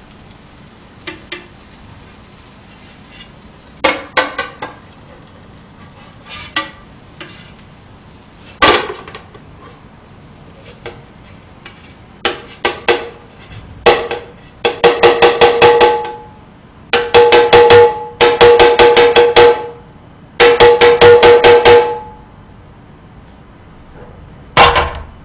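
A spatula scraping and knocking a frying pan: a few sharp knocks, then three loud bursts of rapid scraping clicks, each a second or two long, with the pan ringing through them.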